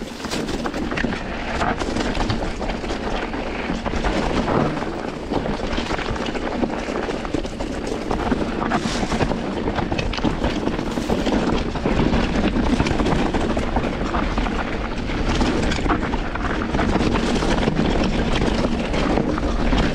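Mountain bike riding over a rough, stony trail: a steady rush of wind and tyre noise with frequent small knocks and rattles from the bike.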